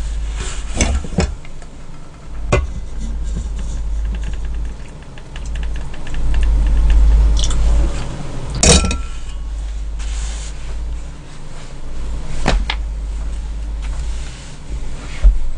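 A metal soup pot of beef seaweed soup being handled on a portable gas burner: several sharp clanks and knocks as it is lifted, tilted to pour off some broth, and set back down, over a steady low rumble.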